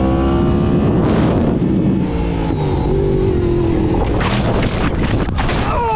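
Yamaha R1M sportbike's inline-four engine, its note falling as the throttle is rolled off, then running steadily. From about four seconds in, loud rough, gusty noise covers it as the bike runs off the pavement edge.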